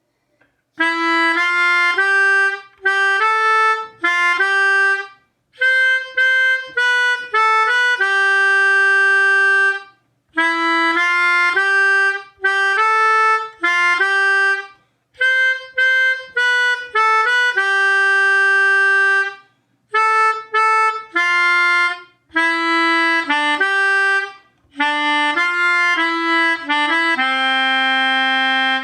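Melodica playing a slow single-note melody in short phrases separated by brief pauses, ending on a long, lower held note.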